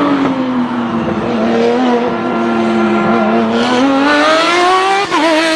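Racing-car engine sound effect: one long, steady engine note that dips a little in pitch through the middle and climbs back, with a short wobble near the end.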